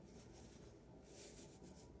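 Faint, soft hiss of fine black baking-soda powder sifting through a metal mesh strainer onto a pile, with a few faint soft rustles about a second in.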